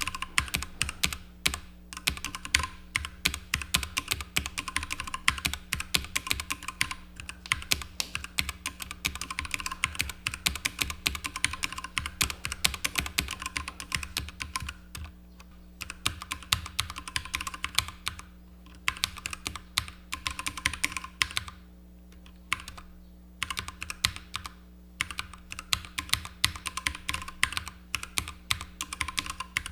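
Typing on a Keychron K6 mechanical keyboard with lubricated Keychron Mechanical Red linear switches: a fast, continuous run of keystrokes broken by a few short pauses.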